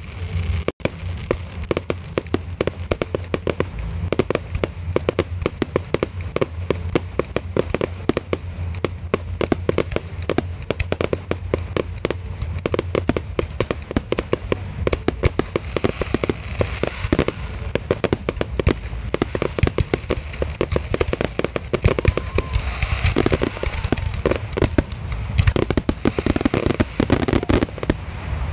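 Fireworks display: a continuous barrage of aerial shell and cake bursts, with rapid overlapping bangs and crackle, and more crackle in the last few seconds as a large burst fills the sky.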